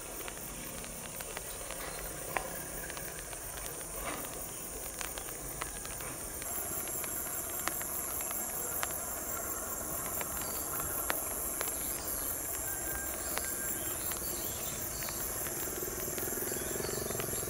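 Steady, high-pitched insect chirring that grows stronger about six seconds in. Near the end, the low rumble of an approaching diesel locomotive begins to come up underneath.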